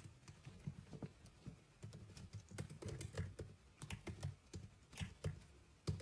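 Typing on a computer keyboard: quiet, irregular key clicks.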